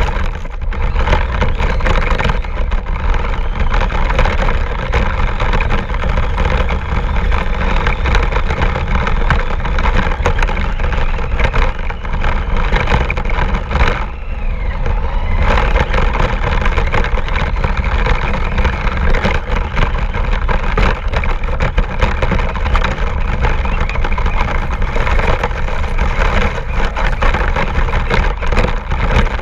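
RC car driving on rough ground, heard close up: continuous loud rattling and rumbling, easing off briefly about halfway through.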